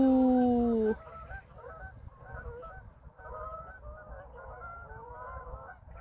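A large flock of geese honking in flight as it flies off, many short calls overlapping. For about the first second a woman's drawn-out "oh" of wonder is the loudest sound.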